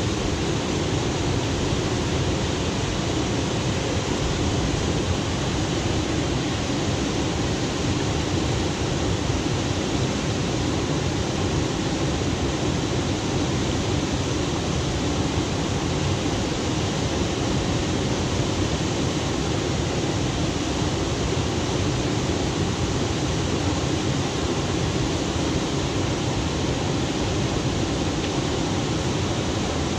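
Steady rush of flowing water, even and unbroken throughout.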